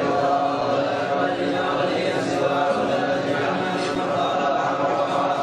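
A crowd of men chanting together in unison, a steady Islamic devotional chant in many voices.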